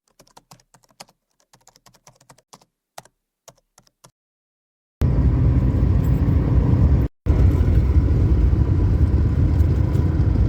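Faint scattered clicks, then from about five seconds in the loud, steady low rumble of a car driving, broken by a brief cut just after seven seconds.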